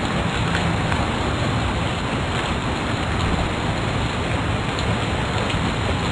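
A steady, even hiss with faint scattered ticks.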